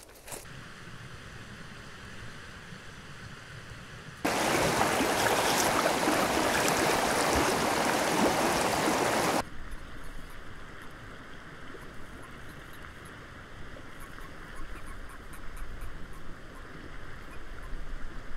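Running water: a loud rushing stream for about five seconds in the middle, starting and stopping abruptly, with a fainter steady flow of water before and after.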